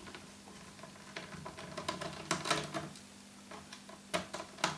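Small screwdriver backing a screw out of a laptop's plastic bottom cover: light, irregular clicks and ticks of the tool on the screw and case, with a few sharper clicks about two seconds in and near the end.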